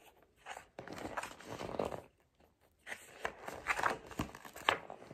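Paper pages of a large picture book being turned and handled: a series of papery rustles and flaps, with a short pause about two seconds in.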